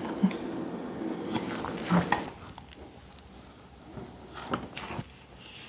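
A knife slicing the rind off a raw pork belly, with soft wet squishing of the fat and skin and scattered light taps on the wooden cutting board.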